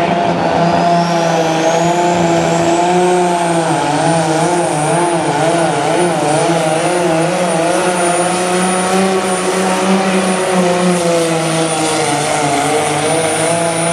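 Minneapolis-Moline pro stock pulling tractor's turbocharged diesel engine running at full power while pulling the sled. A high turbo whine climbs over the first few seconds and then holds steady. The engine note wavers in the middle of the run.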